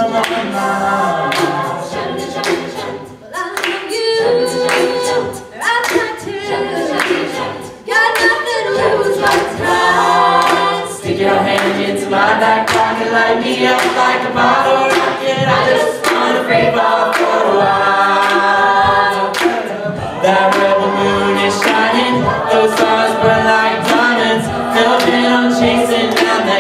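Mixed a cappella group singing a country-pop song live: a male lead voice over the group's stacked backing harmonies, with a rhythmic percussive beat underneath and no instruments.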